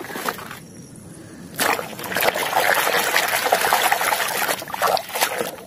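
Water splashing and sloshing as a muddy plastic toy is scrubbed by hand in a tub of muddy water. The splashing starts about a second and a half in, after a few light knocks.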